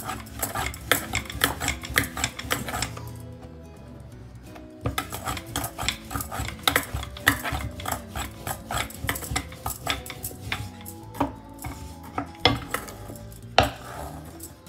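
Rapid clicking and clacking of a thin wooden rolling pin working parotta dough on a bamboo board, with a lull about three seconds in. Background music plays underneath.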